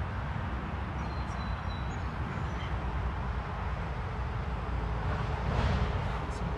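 Steady low outdoor rumble of background noise, with a short hiss about five and a half seconds in.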